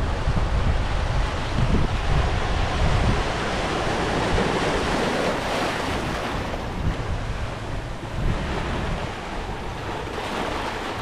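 Small surf washing against a rocky shore, with wind buffeting the microphone in uneven low gusts. The wash swells about halfway through, then eases.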